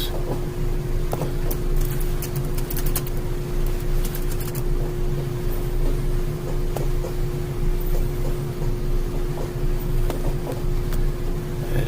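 Steady low mechanical hum with one constant faint tone, with scattered light clicks of a computer mouse, several in a cluster about two to three seconds in.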